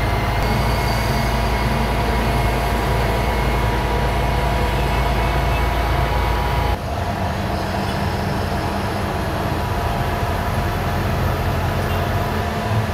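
Bus running along the road, heard from inside the cabin: a steady low engine and road rumble with a faint steady whine. The sound shifts abruptly about seven seconds in, then carries on much the same.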